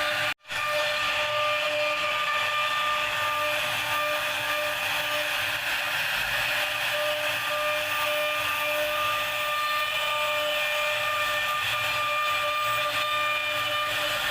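Wood-carving CNC router running steadily with a high-pitched spindle whine, the sound cutting out for a split second near the start.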